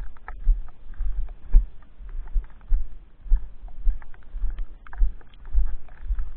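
Footsteps of a person walking through snow, a low thud about twice a second with small crunching clicks between the steps.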